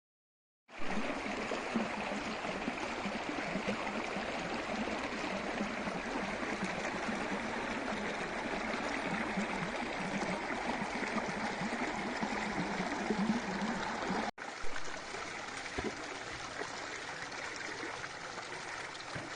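A stream of water running steadily. It breaks off for an instant about two-thirds through and comes back quieter.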